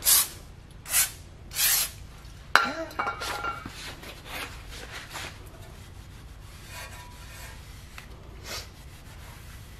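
Aerosol brake cleaner sprayed onto a new brake rotor in three short hisses, then a sharp knock and a shop towel rubbing over the rotor face, the wiping growing fainter.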